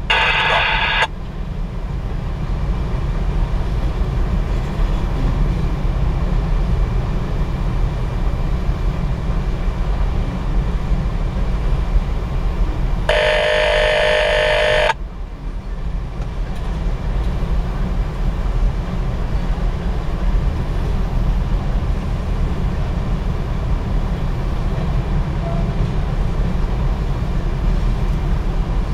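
Freight train hopper cars rolling past over a grade crossing, a steady low rumble heard from inside a car. About halfway through, a loud electronic tone lasting about two seconds starts and stops abruptly.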